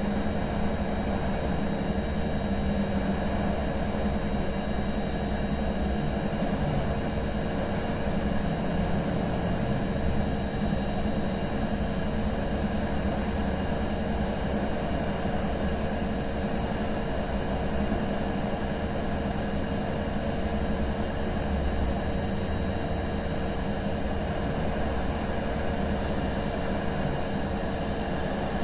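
Budget digital hot-air rework station blowing on a low airflow setting (3) at 380°C: a steady fan hiss with a low hum and a faint steady tone, unchanging throughout.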